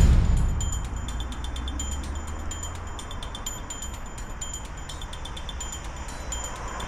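Background music dying away after a loud final hit. A low sustained note sits under a steady, evenly repeating pattern of short high chime-like notes.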